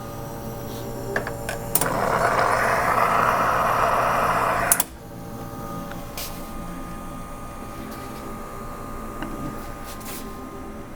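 Victoria Arduino Eagle One espresso machines: a three-second rush of water through the group head, starting and ending with a click, then a steady pump hum as the espresso shots brew.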